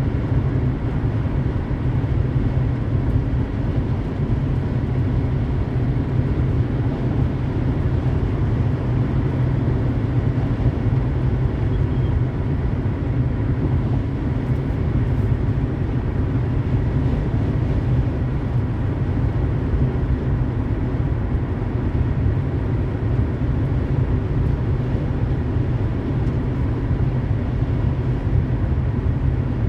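Steady road noise of a car cruising on a highway: a constant low rumble of tyres and engine with a fainter hiss above it.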